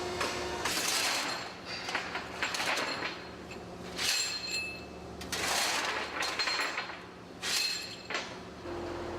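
Metal parts clinking and scraping in repeated short bursts, with a faint ringing. Near the end it gives way abruptly to a steady machine hum.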